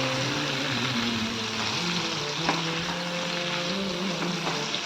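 Prawns and chopped tomato sizzling steadily in ghee and oil in a frying pan while being stirred.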